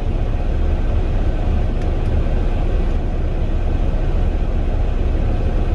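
Strong gusty wind blowing across the microphone: a steady, loud low rumble with hiss above it.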